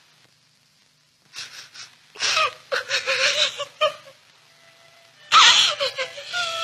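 A woman sobbing in gasping, breathy bursts with a wavering wail, starting about a second and a half in, with a louder burst near the end.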